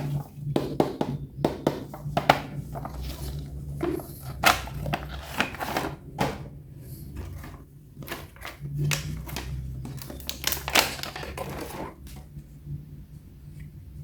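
Rapid, irregular clicks and clatters of hard plastic pieces being handled, stopping about twelve seconds in, over a steady low hum.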